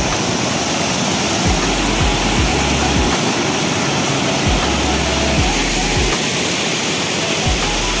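Mountain stream rushing steadily, a loud even water noise, with a low rumble that comes and goes underneath.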